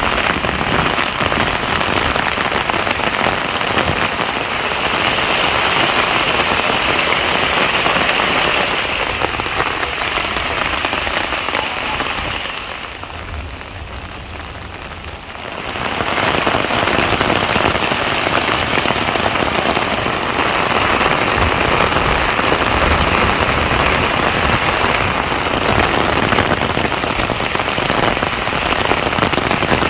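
Heavy rain falling, a dense steady hiss; it softens and dulls for a few seconds about halfway through, then comes back as strong as before.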